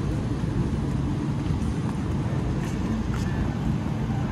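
City street ambience: a steady low rumble of traffic, with wind buffeting the microphone.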